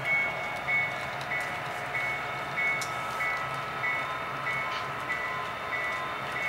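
Model railroad freight cars rolling past on the track, with a regular rhythm of about three beats every two seconds and a steady high-pitched whine.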